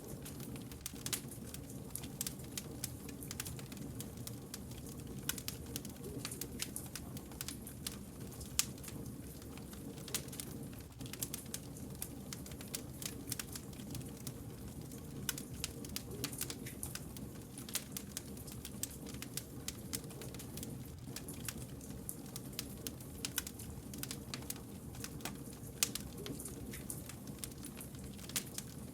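Wood fire burning: frequent irregular sharp crackles and pops over a steady low rumble.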